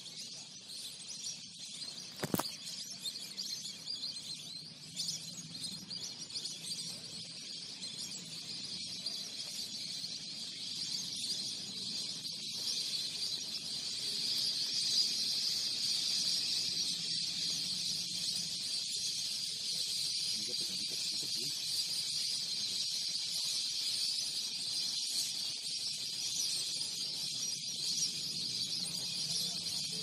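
A steady, high-pitched chorus of insects shrilling without a break, growing louder about halfway through. There is a single sharp knock about two seconds in.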